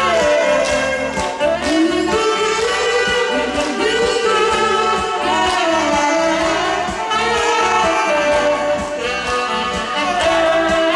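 Saxophone playing the melody of a slow Mandarin pop song over an accompaniment with a steady drum beat.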